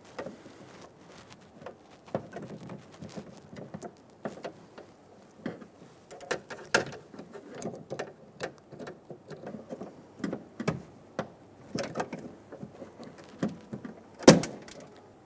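Hands working inside an open car door: plastic rod clips and the door-handle linkage clicking and rattling, with scattered taps and rustles and one loud sharp click near the end.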